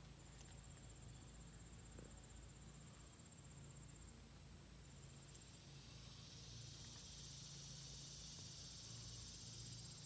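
Near silence with a faint insect chorus: a steady high, fast-pulsing trill, joined about six seconds in by a broader high buzzing that grows a little louder.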